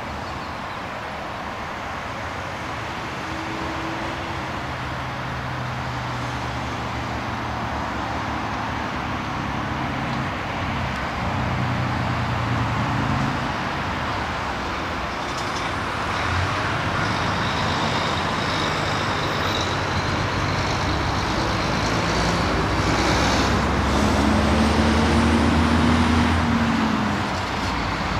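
Jet engines of a United Airlines wide-body airliner rumbling as it rolls out on the runway after landing. The sound grows louder to a peak shortly before the end, with a faint high whine over the rumble in the second half.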